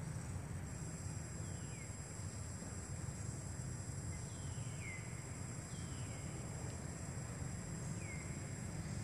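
Steady low rumble with a thin, steady high-pitched hum, over which an animal gives four short chirps that fall in pitch, spread across the few seconds.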